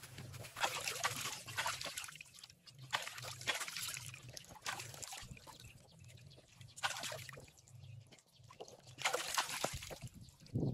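Plucked duck carcass being dunked and swished in shallow pond water, sloshing and dripping in repeated bursts with short pauses between.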